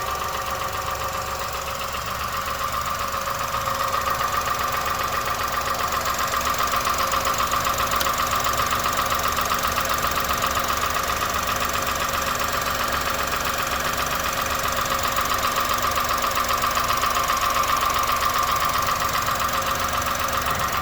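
2001 Honda Insight's 1.0-litre three-cylinder engine idling with a fast, even tapping. The tap comes at idle even though the valves have been adjusted, and goes away while driving.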